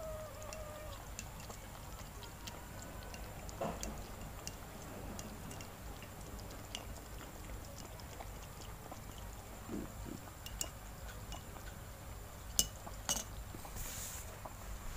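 Kittens lapping milk from a saucer, with small clicks throughout and a couple of sharper clinks of a metal spoon against the saucer near the end. A kitten's falling meow trails off at the very start.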